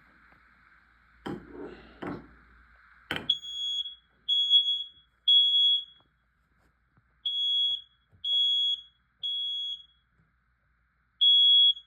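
A home detector's alarm sounds piercing high beeps in groups of three with a pause after each group, set off by aerosol test spray. The three-beep pattern is the standard fire/smoke alarm signal. For the first three seconds, before the alarm starts, there is a faint hiss of the spray and a few knocks.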